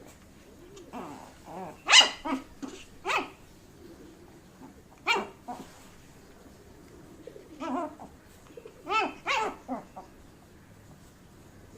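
Shih Tzu puppy barking in play: about half a dozen short, sharp barks spread out with pauses between, the loudest about two seconds in.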